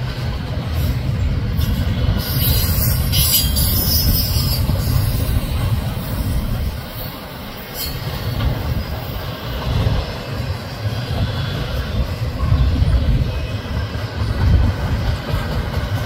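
Double-stack intermodal well cars of a freight train rolling past: a steady low rumble of steel wheels on rail, with a brief burst of high-pitched noise about two seconds in.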